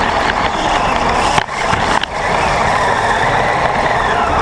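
An RC rock crawler's Novak Ballistic 13.5T brushless motor whines steadily as it drives, over a rough rumble of tyres on uneven ground. Two sharp knocks come about a second and a half in and again about two seconds in.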